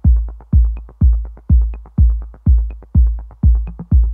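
Upbeat electronic background music with a heavy kick drum on every beat, about two a second.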